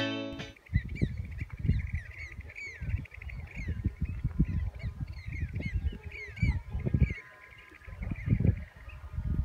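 A flock of waterbirds calling on the marsh: many short, high, arched calls overlapping, thinning out for a moment before picking up again near the end. Low gusty rumbles of wind hit the microphone throughout.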